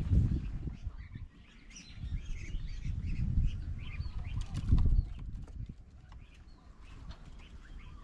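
Small birds chirping in short, repeated calls, over an irregular low rumble that swells and fades, strongest near the start and again around the middle.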